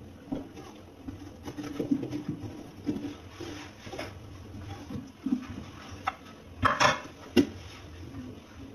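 A metal ladle scraping the seeds and flesh out of the inside of a green pumpkin in short, irregular strokes. Near the end, a few sharp knocks as the ladle is set down on a ceramic plate.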